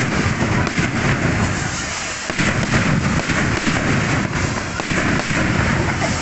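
Fireworks going off without a break: dense crackling and rapid pops over a low rumble of bursts.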